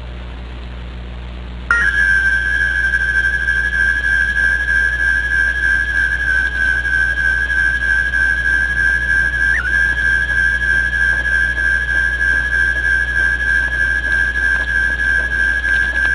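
A low hum with hiss, then about two seconds in a steady high-pitched whistling tone cuts in suddenly and holds at one pitch, with a brief blip near the middle.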